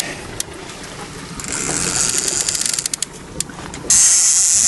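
Fishing reel drag clicking in a quick run of ratchet clicks as a deep-diving coalfish takes line, followed near the end by a loud burst of hiss.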